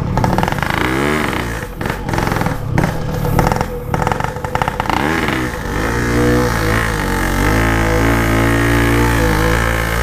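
Yamaha RX-King's two-stroke single-cylinder motorcycle engine revving up and dropping back several times. From about six seconds in it runs at a steady, held pitch under load.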